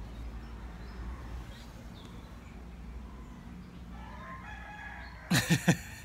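Chickens calling: faint calls from about four seconds in, then a quick run of three or four loud, sharply falling calls near the end, over a steady low rumble.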